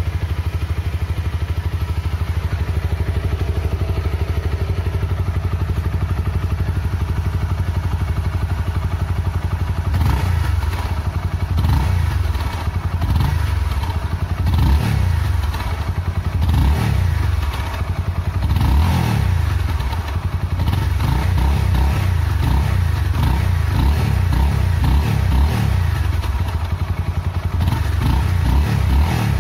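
Honda CBR250R's single-cylinder engine running through its stock exhaust, heard close to the muffler. It idles steadily, then about ten seconds in gets a run of short throttle blips, each a quick rise and fall in revs, before settling back to idle.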